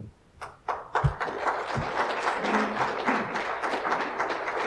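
Congregation applauding: scattered claps that build about a second in into steady applause, with a short low thump near the start.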